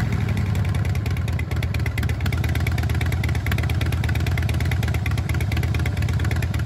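Harley-Davidson 45-degree V-twin motorcycle engine running steadily, its exhaust giving the characteristic Harley note as a fast, even train of low pulses.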